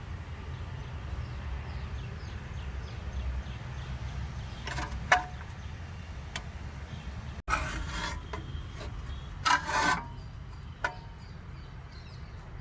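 Short scraping and rubbing noises of metal tools working on a rear brake caliper, a few seconds apart, over a steady low rumble, as a clamp tool is tightened to push the caliper piston back in.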